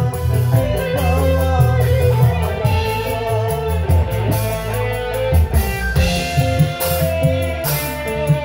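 A live band playing loud music: drum kit and guitar keeping a steady beat under a wavering melody line.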